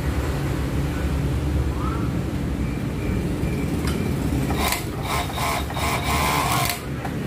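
Industrial four-thread overlock (serger) machine running and sewing a test seam on stretch fabric, to check its needle-thread tension after tightening. A steady low hum runs throughout. A fast, clattering run of clicks comes in about two-thirds of the way through and stops just before the end, when the machine quiets down.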